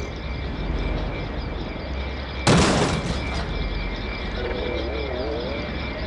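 A steady low rumble, broken about two and a half seconds in by a sudden loud burst of noise, like a blast, that lasts about a second.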